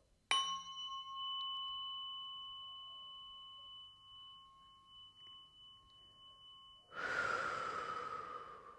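Tuning fork struck once and left ringing: a clear, steady, high tone with a fainter upper overtone that slowly fades. Near the end a loud breathy rush of air comes in and dies away.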